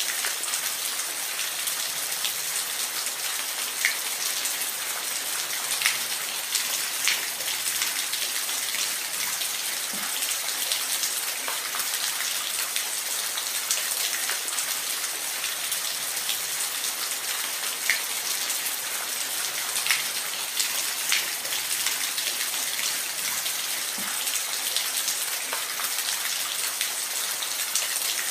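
Steady rain: an even hiss of falling rain with scattered louder individual drops ticking now and then.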